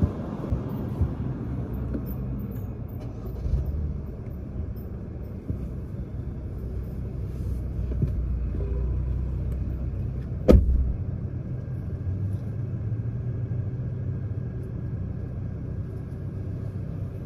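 Car engine running with a steady low rumble. A few light clicks in the first two seconds and one loud, sharp thump about ten and a half seconds in.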